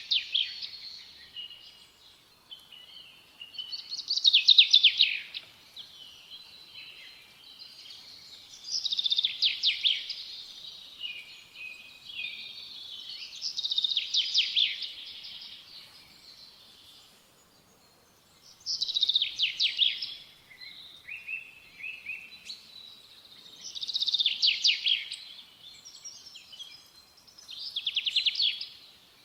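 A small songbird singing. Loud phrases of fast, trilled high notes come about every five seconds, each lasting a second or so, with softer twittering between them.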